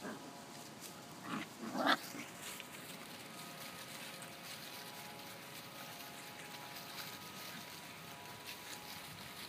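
Labrador puppies play-fighting, grunting and growling, with two short cries a little after one second in, the second and louder one near two seconds, over the crackle of dry leaves and straw underfoot.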